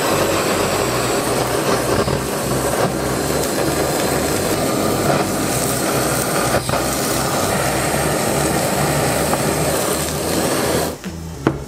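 Handheld household gas kitchen torch burning with a steady hiss as its flame sears salted pieces of pike conger. The flame cuts off sharply about eleven seconds in.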